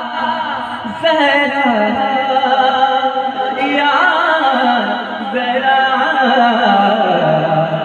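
A man singing a naat unaccompanied into a microphone, long held notes that waver and slide in pitch, with a fresh phrase starting about a second in.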